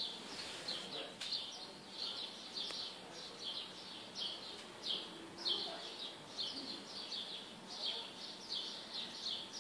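Small birds chirping: a steady run of short, high, slightly falling chirps, two or three a second.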